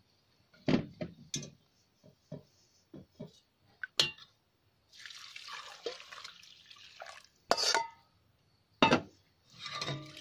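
A metal ladle scrapes and knocks against a stainless-steel mesh strainer sitting on a pot, in a series of sharp clicks. About halfway through, broth is poured through the strainer and splashes into the pot for two seconds or so. Then two louder metal knocks follow.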